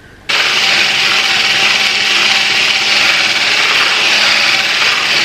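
Handheld stick blender switched on about a third of a second in and then running steadily, its blade churning a thick mango, custard and whipped-cream mixture in a bowl.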